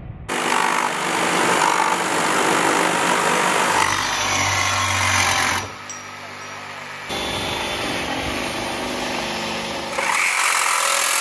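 Cordless reciprocating saws running and cutting, in a run of short clips cut together. The sound changes abruptly at each cut, with a quieter stretch about six to seven seconds in.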